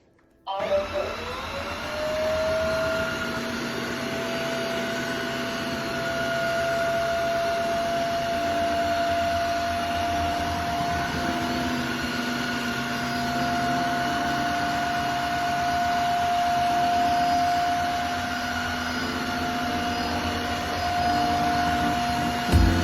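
Tineco Floor ONE S5 cordless wet-dry vacuum's motor starting up with a rising whine about half a second in, then running steadily with a high whine over the rush of suction.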